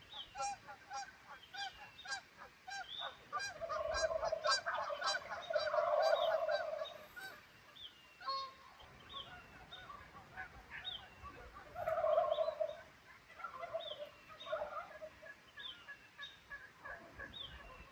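Geese honking repeatedly, with louder stretches of overlapping honks about four to seven seconds in and again around twelve seconds. Small birds keep calling with short, repeated high notes alongside.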